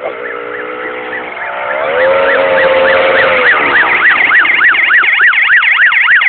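Siren fitted to a moped, sounding in quick up-and-down sweeps over a steady held tone. It grows louder about two seconds in, and the sweeps come faster near the end.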